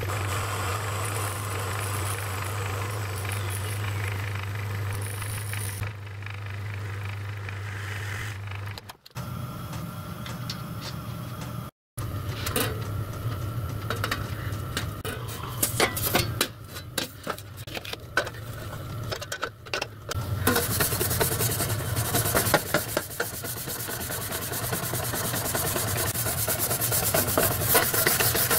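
Metal-turning lathe running with a steady hum while turning a small blanking plug. After a break come knocks and clicks of copper tank plates being handled, then from about 20 seconds in a steady scraping rubbing as the copper is scoured clean ready for soldering.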